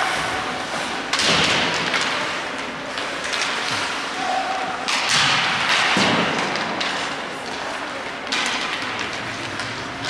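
Basketball thudding on a gym floor amid game noise, with sudden swells of noise about a second in, at five seconds and at eight seconds. There are short squeaks, typical of sneakers on hardwood.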